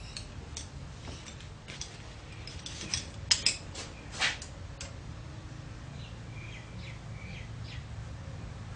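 Allen keys clinking and scraping against steel while being tried in the socket-head screws under a mini lathe's spindle housing, with a few sharp metallic clinks around the middle. Faint high squeaks or chirps follow near the end.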